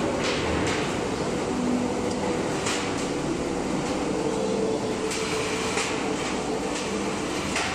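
Rib rolling machine running as its grooved steel rollers press strengthening ribs into a rolled stainless steel water-tank shell: a steady mechanical hum with a few low steady tones and irregular sharp clicks.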